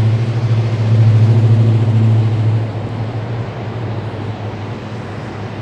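A passing road vehicle's engine droning with a low, steady hum, loudest in the first couple of seconds and then fading as it moves away, over traffic noise.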